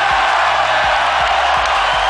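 Loud music with a steady beat over the noise of a crowd in an arena.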